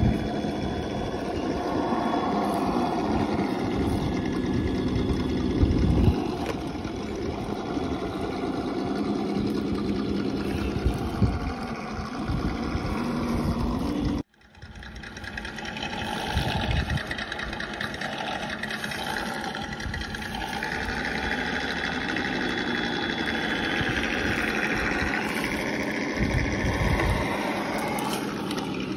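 Simulated V8 engine sound from the onboard electronic sound module of 1/10-scale Traxxas TRX-4 RC crawlers, running steadily and rising and falling in pitch with the throttle as the trucks crawl over rock. It cuts out briefly about halfway through, then resumes.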